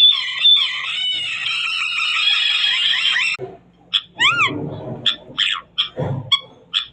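Cockatoo screeching: one long, harsh screech lasting about three seconds, followed after a brief pause by a run of shorter squawks and chirps.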